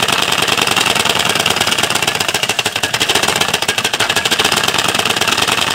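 A stiff piece of card clipped to a bicycle frame, flapping against the spokes of the spinning rear wheel: a loud, steady, very rapid clatter that imitates a motorbike engine.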